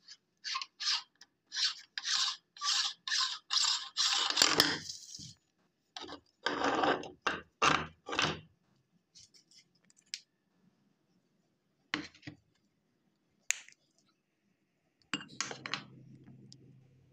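Hand-cranked metal meat grinder worked in a steady rhythm of about two to three scraping strokes a second, ending in a longer, louder scrape about four seconds in. Then come a few slower scrapes and scattered metal clicks as the grinder is taken apart, and a rubbing stretch near the end.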